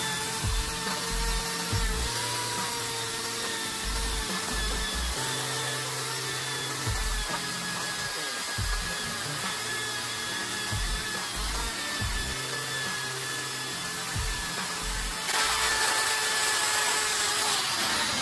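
Cordless drill spinning a 3M abrasive polishing disc against pool mosaic tiles, a steady motor whine with a scrubbing grind as it strips calcium and saltpeter scale off the tile. It gets louder for a couple of seconds near the end, with background music under it.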